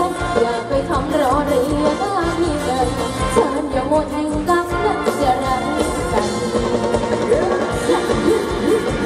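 Live Thai ramwong dance band playing, with a singer's voice over a steady drum beat.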